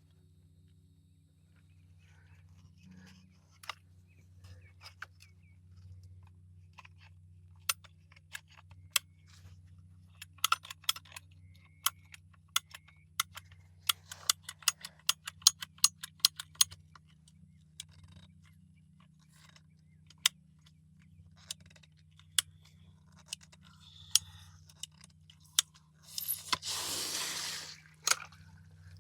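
PVC pipe cutter clicking sharply as its handles are squeezed again and again to cut through a PVC water pipe, a dense run of clicks in the middle, then a rough scraping burst of about a second and a half near the end.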